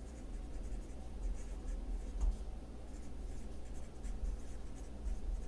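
Pencil writing on spiral-notebook paper: light, irregular scratching strokes as a line of words is written out by hand, over a low steady hum.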